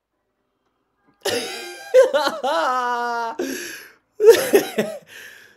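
A man's non-word vocal reaction, starting about a second in: laughing, with a long drawn-out held vocal sound in the middle and short cough-like bursts near the end.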